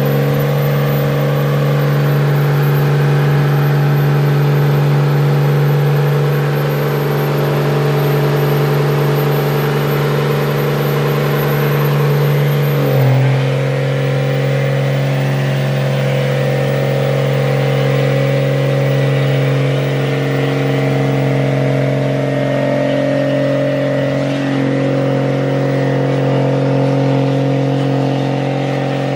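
Dodge Ram pickup's 5.9-litre Cummins inline-six turbo diesel held at steady revs through a long burnout, its rear tire spinning and smoking on the pavement. The engine pitch dips briefly and settles slightly lower about halfway through.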